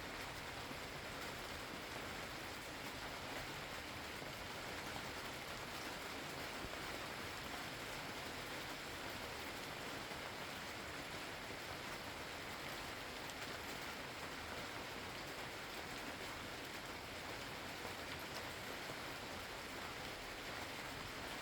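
Rain falling steadily: an even hiss of drops with no breaks and no thunder.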